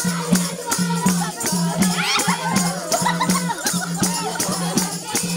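Ratyauli folk dance music: women singing over a fast, steady percussion beat, with sharp strikes about four a second and a low pulsing tone.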